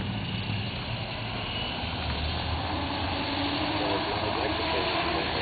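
A 50-size electric RC helicopter's motor whining and main rotor whooshing as it lifts off into a low hover.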